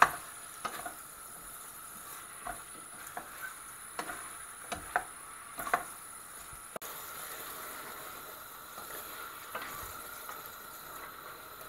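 A spatula stirring courgette pieces in a stainless steel saucepan: irregular scrapes and sharp knocks against the pan, most of them in the first six seconds and only a few soft ones after, over a steady sizzle of the masala frying.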